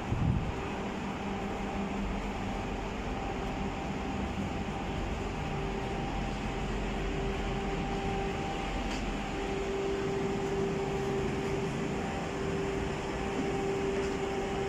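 A steady mechanical hum with a droning tone, over a constant background rush.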